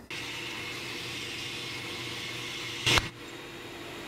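Bench belt sander running steadily, a hiss over a low hum. About three seconds in comes one short, sharp crack, the loudest sound.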